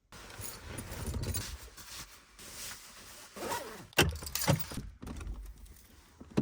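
Rattling and clattering of objects being handled, with two sharp clanks about four seconds in.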